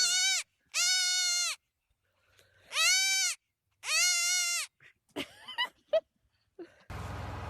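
An animal calling four times: loud, high-pitched calls, each rising, holding and then falling, in two pairs. A steady background noise starts near the end.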